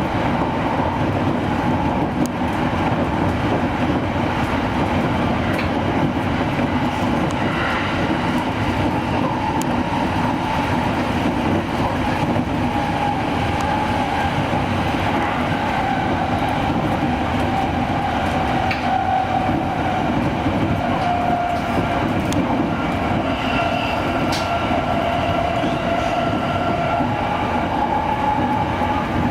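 Electric commuter train running between stations, heard from inside the leading car. Steady running rumble with wheel clatter over the rails and a whine that drifts up and down in pitch.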